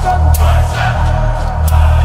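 Future-garage electronic track: heavy sustained sub-bass with wavering synth or vocal tones above it, and two sharp percussion hits a little over a second apart.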